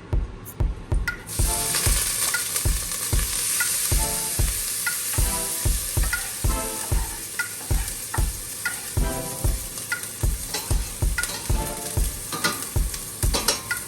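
Chopped onion, garlic, pimento and thyme sizzling in hot oil in a pot, the sizzle starting about a second in and staying steady, with some stirring. Background music with a steady beat plays underneath.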